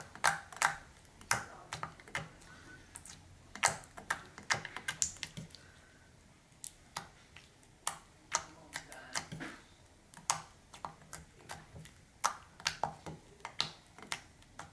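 Slime being kneaded and squeezed in the hands, making irregular sharp clicks and pops in quick clusters, with a brief lull about six seconds in. The clicks come from suction as air is pressed out of the slime.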